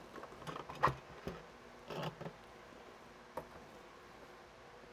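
A spool of cord being handled: a few soft clicks and knocks, the sharpest about a second in, and a brief rustle about two seconds in.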